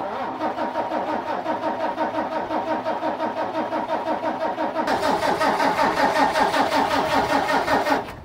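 Case IH Magnum 305 tractor's diesel engine being cranked over by its starter, an even chugging of about four beats a second, without catching; it cuts off suddenly near the end. The tractor won't start.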